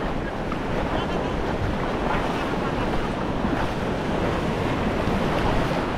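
Shallow ocean surf washing steadily, with wind buffeting the microphone.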